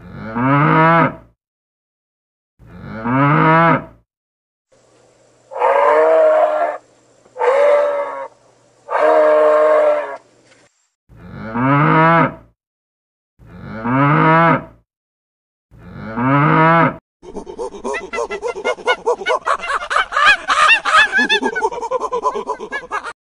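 Cattle mooing: a string of separate moos about a second long, each rising in pitch. In the middle come three longer, higher-pitched calls, and near the end a few seconds of rapid, pulsing chatter.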